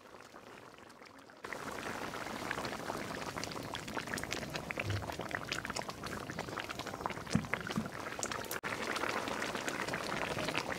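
Fish curry bubbling at a steady boil in a large aluminium pot: a dense crackling bubbling that starts suddenly about a second and a half in.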